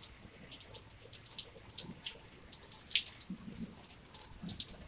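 Light rain, with irregular drips and small splashes of water falling onto wet pavement and puddles.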